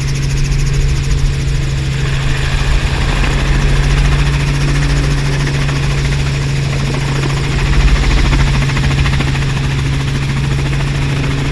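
Robinson R44 helicopter running, heard from inside the cabin: the six-cylinder piston engine and the rotor make a steady drone with a fast, even pulse, during a low approach to land.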